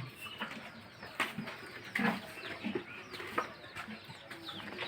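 Farmyard birds: chickens clucking and small birds chirping in scattered short calls, more of them towards the end.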